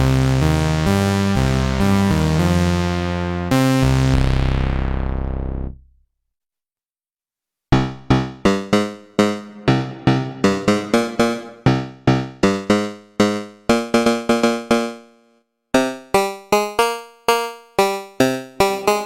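Waldorf Pulse 2 analog monosynth playing a sustained, thick bass phrase with changing notes that fades out about six seconds in. After a short silence, a different preset plays a quick run of short, plucky notes that decay fast, about three a second. This run fades, pauses briefly and starts again near the end.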